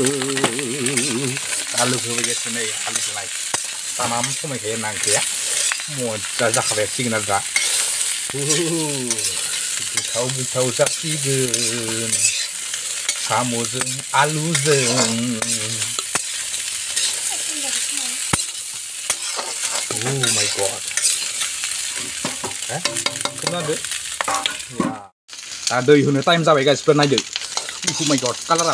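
Potato pieces sizzling as they fry in oil in a black wok, while a spatula stirs and scrapes against the pan in repeated strokes. The sound drops out for a moment near the end.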